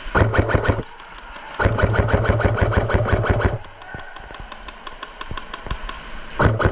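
Airsoft electric gun firing on full auto in rapid bursts: a short burst, a longer one of about two seconds, and another short burst near the end, with fainter rapid fire between them.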